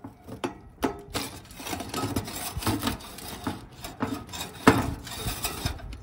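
A baked pizza scraping and rasping across the wire rack of a Black & Decker convection toaster oven as it is pulled out, with a few sharp metallic clicks.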